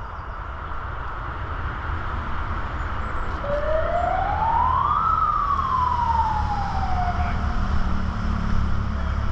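A single siren wail that rises in pitch for about a second and a half and then falls away more slowly, over a steady low rumble that grows louder.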